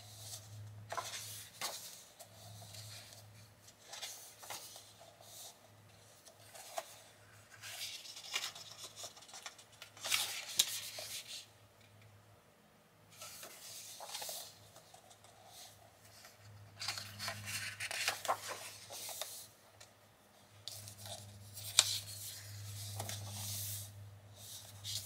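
Pages of a Mythographic Wild Summer adult coloring book being turned and smoothed down by hand: paper swishing and rustling in repeated bursts, with a faint steady low hum underneath.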